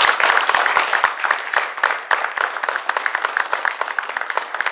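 Audience applauding: dense clapping at first, thinning to more scattered claps toward the end.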